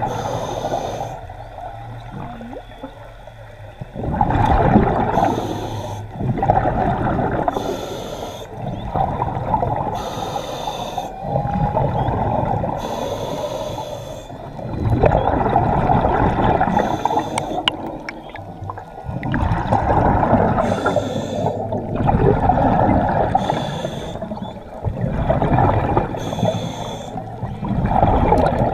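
A free diver's heavy breathing, one loud breath every few seconds, over the sloshing and gurgling of water around the microphone.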